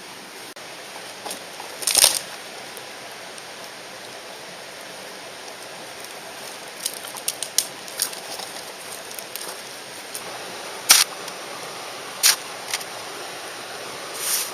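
Steady rush of a mountain stream. A few sharp clicks or snaps are scattered over it, the loudest about two seconds in and a quick cluster around seven to eight seconds.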